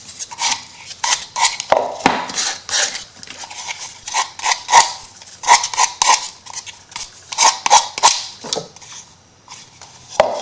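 Small hard tools and craft supplies clattering and clinking as they are rummaged through on a tabletop, an irregular string of knocks and light metallic rattles, typical of searching for a craft knife.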